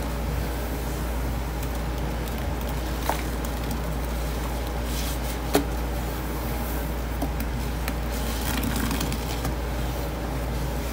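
Gloved hands squeezing and kneading sponges through thick detergent paste in a stainless steel sink: soft squishing and crackling, with a couple of sharp clicks, over a steady low hum.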